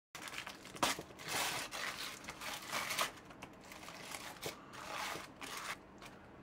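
Aluminium foil crinkling and crackling in irregular bursts as hands pull it open, dying down near the end.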